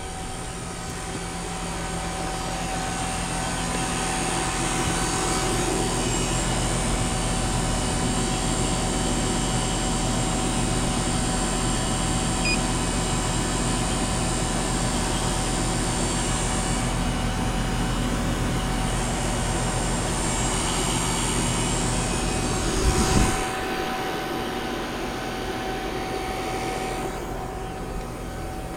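A motor runs steadily, a drone with a thin whine through it. There is a short knock about 23 seconds in.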